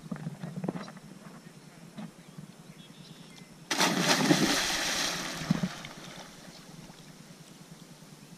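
A person jumping off a rock into a pond: a sudden loud splash, then water churning and settling over about two seconds. A few brief knocks come in the first second.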